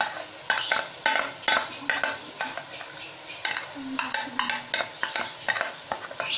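A metal spoon scraping and knocking yogurt-and-spice mixture out of a bowl into a pan of frying masala: a quick, irregular run of scrapes and clicks, several a second, over a light sizzle.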